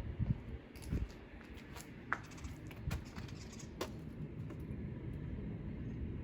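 Footsteps on a debris-strewn floor: a few soft thuds with scattered ticks and crackles, over a low steady rumble.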